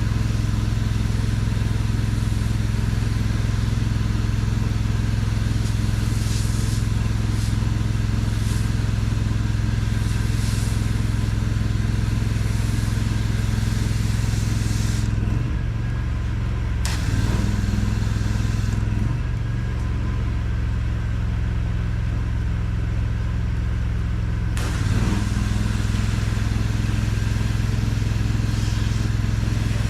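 Pressure-washing rig's engine running steadily while a driveway is pre-treated with soft-wash mix. The spray hiss stops briefly about halfway through, then cuts out again for several seconds before resuming.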